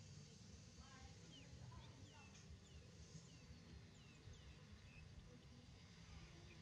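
Faint high animal chirps: a scattered series of short, falling calls over a low background rumble.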